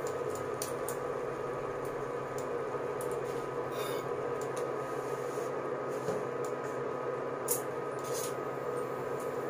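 Steady electrical hum made of several held tones, with a few faint light clicks.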